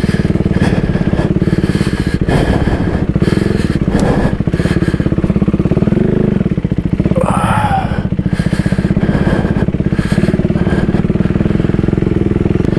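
Single-cylinder engine of a Husqvarna Svartpilen 401 motorcycle running steadily at low trail speed, its throttle easing on and off. A brief higher, wavering sound comes in about seven seconds in.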